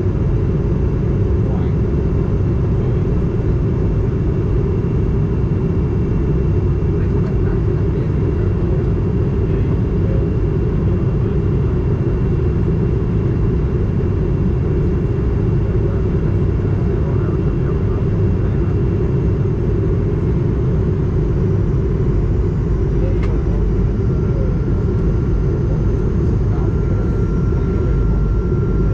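Airbus A220 cabin noise on descent: the Pratt & Whitney PW1500G geared turbofan engines and the airflow make a steady, loud low rumble. A faint high whine joins near the end.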